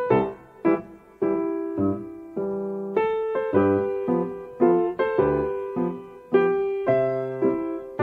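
Slow piano music: single notes and chords struck one after another, each ringing out and fading before the next.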